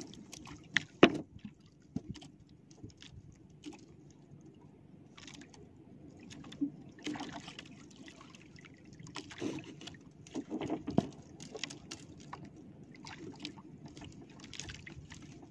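Water lapping and sloshing against the hull of a small outrigger boat, swelling up a few times, with scattered light knocks and taps from the fishing line and gear being handled.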